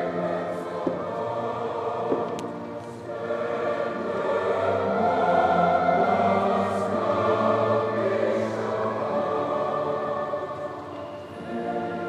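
Choral music with slow, held chords, swelling a little about four seconds in.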